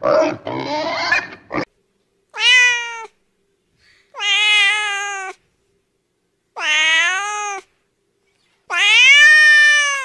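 Pigs grunting for about a second and a half, then a tabby kitten meowing four times. Each meow is long and drawn out, rising at the start and then holding or easing down, with short silences between.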